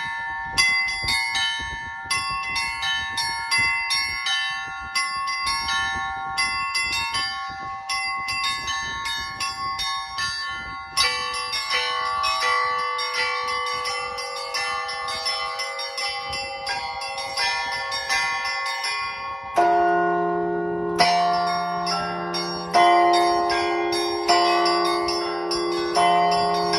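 Russian Orthodox church bells rung by a bell-ringer in a quick pattern on the small bells. Middle bells join about eleven seconds in. A deeper bell comes in near twenty seconds, striking about every second and a half under the smaller bells.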